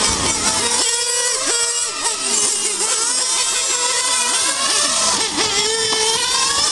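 Several radio-controlled model race cars' small engines revving up and down over and over as the cars brake and accelerate, their high buzzing pitches overlapping.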